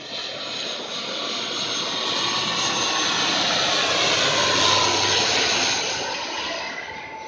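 Twin-engine turboprop airliner on approach to land, passing low overhead. Its engine and propeller noise builds to a peak about two-thirds of the way through and then fades, with a whine that drops in pitch as it goes by.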